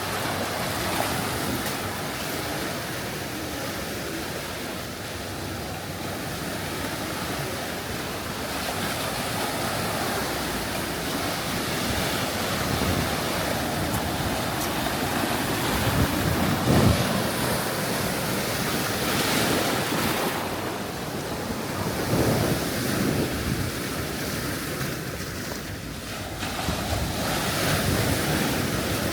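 Gulf of Mexico surf washing onto the beach, a steady rush that swells with each wave, several times in the second half, with wind buffeting the microphone.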